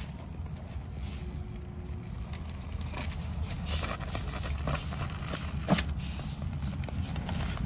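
Radio-controlled car running, a steady low rumble with scattered scraping and clicking and one sharp knock a little after halfway.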